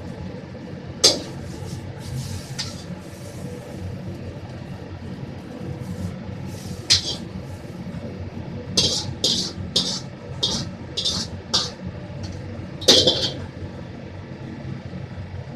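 Chinese wok cooking on a commercial stove: a metal ladle clatters and scrapes against a steel wok over the steady low rumble of the burner and extraction hood. The clatters come singly at first, then in a quick run of about two a second, ending with a loud clang near the end.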